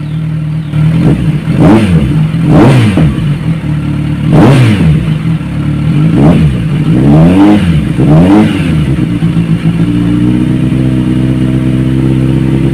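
Kawasaki Ninja 1000SX inline-four running through a Yoshimura R77 slip-on muffler: it idles, then takes about six quick throttle blips that each rise and fall back, and settles to a steady idle near the end.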